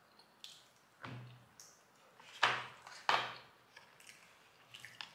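Knocks and taps of a fork and paper food bowl being handled on a wooden table: three louder knocks with a dull thud in the first half, and lighter clicks around them.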